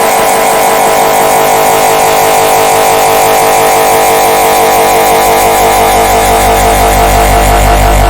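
The red bird laughing meme sound effect layered over itself a huge number of times at once, merging into a loud, dense, steady drone. A low hum grows under it in the last couple of seconds.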